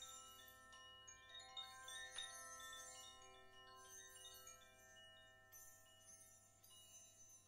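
Faint metal chimes ringing: clear bell-like notes at many pitches struck one after another and left to ring on over each other, with a high shimmer above them.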